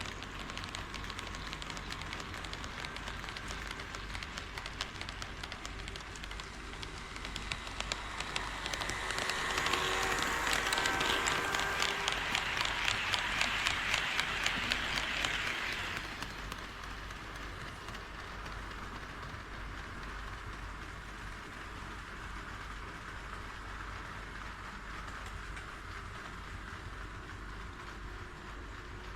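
HO scale model train running on sectional track, its wheels making a dense rattling clatter over the rail joints. It gets louder about a third of the way in as the train passes close, then falls back about halfway through.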